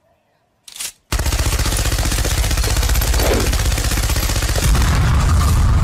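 Machine-gun sound effect firing continuously in rapid automatic fire, starting about a second in.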